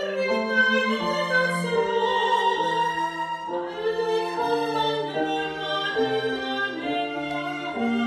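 Slow classical chamber music: a soprano sings over sustained viola and cello lines with piano, the notes held and changing about once a second.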